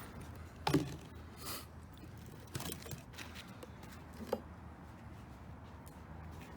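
A few scattered light knocks and scrapes of metal parts being handled and pried at, over a low steady hum.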